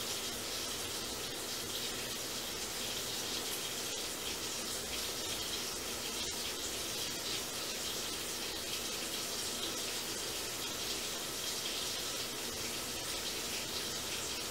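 Steady rushing background noise, even and unbroken throughout.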